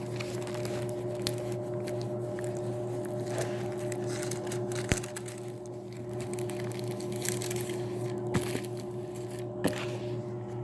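Crackling and rustling handling noise, with scattered sharp clicks, as a rolled diamond painting canvas is taken out and unrolled. A steady low hum runs underneath.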